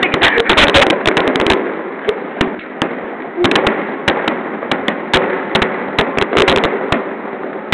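Fireworks display: many bangs in quick, irregular succession, packed closely in the first second and a half, then coming more scattered.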